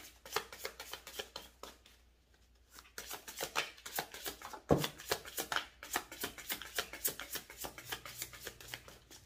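A deck of tarot cards being shuffled by hand: a run of quick, soft card clicks that pauses for about a second, then resumes, with one louder tap about halfway through.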